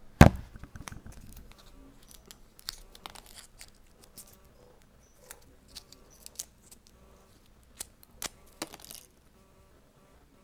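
A loud knock about a quarter second in, then scattered clicks and short crinkling from a foil blister pack of tablets being handled.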